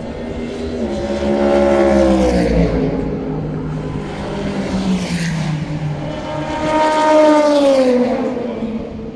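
Two race cars passing one after the other, about five seconds apart, each engine growing louder and then dropping in pitch as it goes by.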